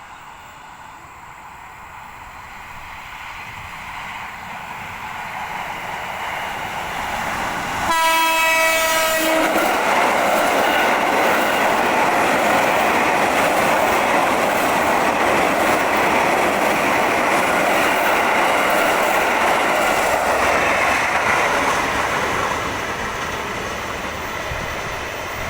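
KRL Commuter Line electric commuter train approaching with a steadily rising rumble. About eight seconds in it gives one short single-note horn blast, the driver's greeting, then passes loudly with the rush of wheels on rail for about twelve seconds before easing off near the end.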